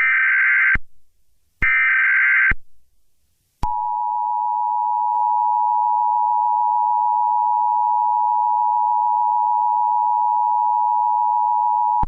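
Emergency Alert System signal. It starts with two about one-second bursts of warbling digital data tone from the SAME header, a second apart. About three and a half seconds in, the steady two-tone EAS attention signal (853 and 960 Hz) comes in and holds unbroken.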